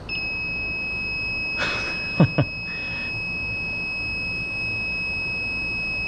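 Electronic refrigerant leak detector sounding one steady, unbroken high beep instead of intermittent ticks, held against the refrigerant line: the sign that it has found a refrigerant leak. About two seconds in there is a brief rustle and two quick falling chirps.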